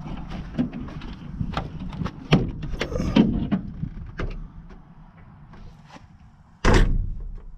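Irregular knocks, clicks and rustling as a camera is handled and set down inside a small plane's cabin, then one loud, sudden thump near the end.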